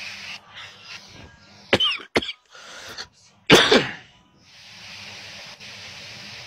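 A person coughs: two short sharp sounds just before two seconds in, then a louder cough about three and a half seconds in, with a steady hiss before and after.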